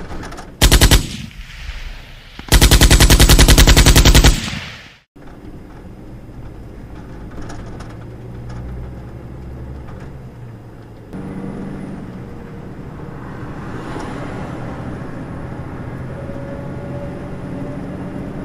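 Two very loud bursts of rapid, evenly spaced cracks like machine-gun fire: a short one about half a second in, and a longer one of about two seconds starting around two and a half seconds in. They give way to steady truck engine and road noise.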